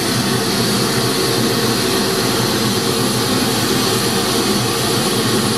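Steady hiss-like test noise played loud through a PA speaker's mid and high sections together, for a frequency-response measurement, with little deep bass.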